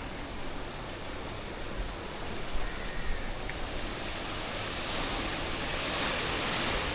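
Sea surf washing on the shore: a steady rush of noise that swells slightly toward the end.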